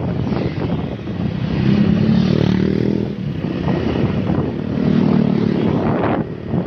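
Vehicle engines droning in road traffic, heard from a moving motorbike, with wind buffeting the microphone. The engine drone swells twice, about two seconds in and again about five seconds in.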